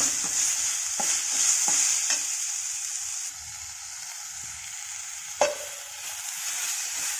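Grated gooseberry masala with dried red chillies sizzling in a stainless steel kadai while a steel spatula stirs it, with a few sharp knocks of the spatula on the pan, the loudest about five seconds in. The sizzle drops noticeably about three seconds in.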